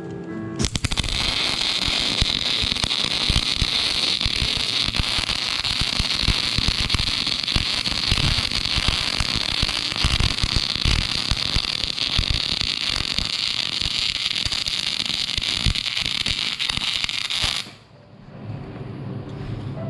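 Wire-feed welder arc crackling steadily as a bead is run on the steel of an excavator bucket, striking about half a second in and cutting off abruptly a couple of seconds before the end.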